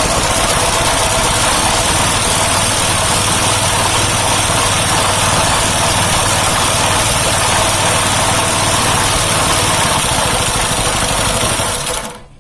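Small engine of an air compressor running steadily after being started, then stopping abruptly near the end.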